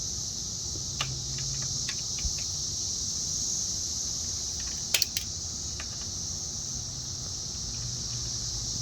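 Steady, high-pitched chorus of insects, with a few faint clicks and a sharp double click about five seconds in.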